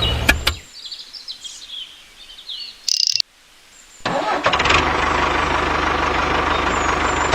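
A vehicle engine running stops shortly after the start, leaving birds chirping. About four seconds in, an engine starts and runs steadily.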